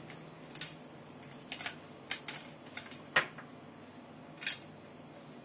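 Chopped dry fruits being sprinkled and pressed onto a chocolate-coated ice-cream bar: light, irregular clicks and ticks as nut pieces drop onto the plate, the sharpest a little after three seconds in.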